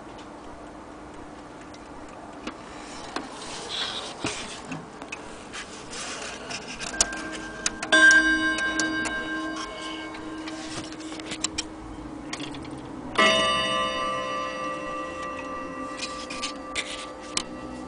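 Gustav Becker Westminster mantel clock: its chime rods are struck twice, about five seconds apart, and each strike rings out with many overtones before fading. The clock's ticking and small handling knocks are heard throughout.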